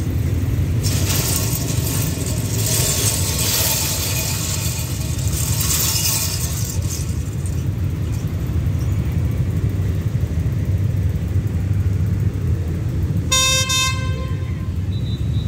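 A diesel locomotive's horn blows once, briefly, about thirteen seconds in, as the approaching express train warns the level crossing. It sounds over a steady low rumble, with a stretch of hiss in the first several seconds.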